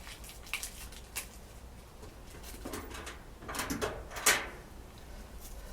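Handling noise from a dryer power cord and its strain relief clamp being fitted: a few light clicks, then a louder stretch of rattling and scraping about three to four seconds in.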